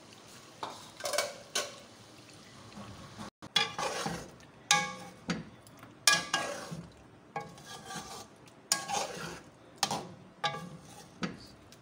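A metal spoon scraping and knocking against a metal cooking pot in irregular strokes, about one every half-second to second, as yogurt is stirred into browning chicken to fry the qorma masala.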